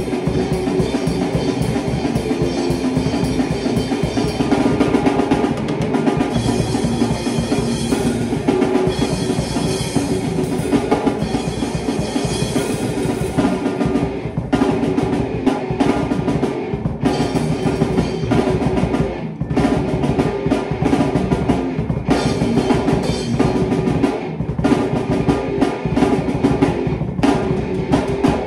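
Rock jam of an acoustic drum kit, with cymbals, kick and snare, together with an amplified electric guitar holding riff notes. About halfway through the playing turns into choppy stop-start hits with short breaks between them.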